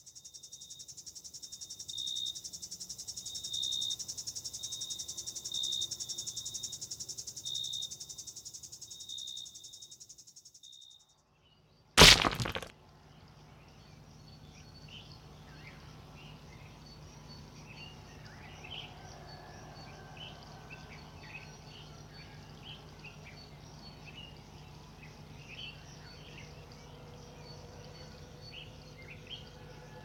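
A katydid's stridulating song: a dense, high rasping buzz with a pulse about once a second, swelling and then fading out about eleven seconds in. A single loud crack follows about a second later, then faint chirping of insects over a low steady hum.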